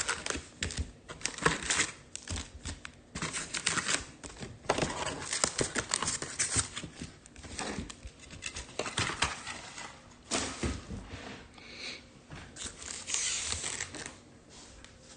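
Trading card packaging being opened by hand: foil pack wrappers and plastic wrap crinkling and tearing in irregular crackles and rustles.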